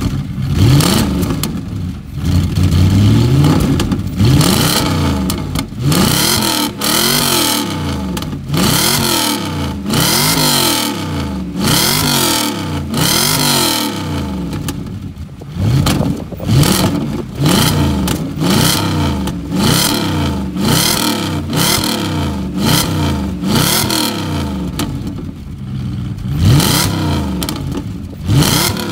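Straight-piped Audi S4's V8 being revved hard while stationary, one rev after another, each climbing in pitch and dropping back, about every one to two seconds.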